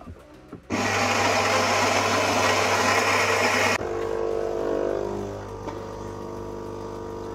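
Philips EP2200 bean-to-cup espresso machine starting a coffee. Its ceramic grinder runs loudly for about three seconds and stops abruptly. A quieter, steady motor hum follows as the brew group drive moves, dropping lower near the end.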